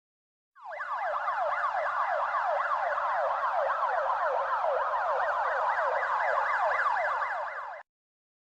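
Synthesized instrument sound from a music-composing app: a dense, siren-like run of quick falling pitch sweeps, several a second, that starts just under a second in and cuts off abruptly near the end.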